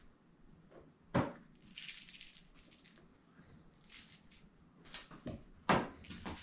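A few sharp light knocks with soft rustling between them as a small toy is tossed, batted by a cat's paw and caught by hand; the loudest knock comes about a second in and another near the end.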